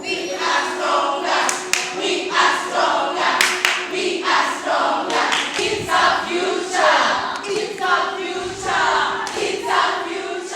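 A group of voices singing or chanting together in a regular rhythm, about one loud phrase every second, over a steady held tone, with sharp claps among them.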